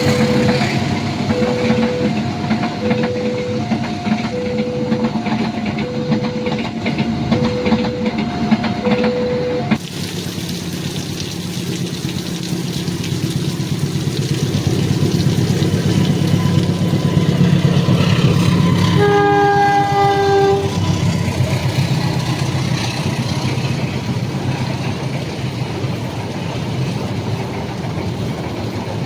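An electronic two-tone warning alarm alternates steadily over rumble and rain hiss; this is typical of an Indonesian railway level crossing. Then a diesel train rumbles past, growing louder, and sounds one horn blast of about a second and a half, followed by continuing rumble.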